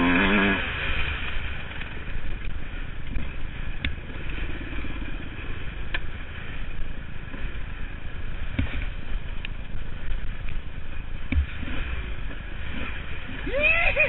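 Honda CR250 two-stroke dirt bike running on a rough dirt trail, its engine revving briefly near the start and near the end, with heavy wind buffeting on the microphone and a few sharp knocks from the bike over rocks and ruts.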